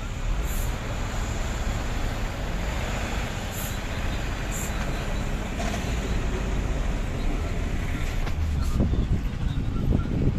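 A vehicle driving slowly along a town street: steady engine and road rumble, with a few short clicks and some low bumps near the end.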